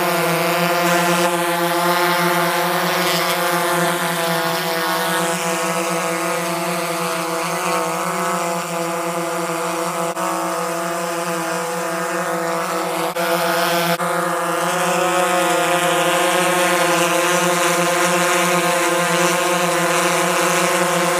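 Steady buzzing whine of a quadcopter drone's motors and propellers, holding a nearly constant pitch.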